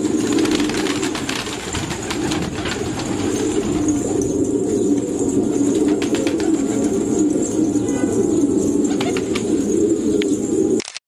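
A flock of fancy pigeons cooing continuously, many overlapping coos, with a few wing flaps and clicks. The sound cuts out abruptly near the end.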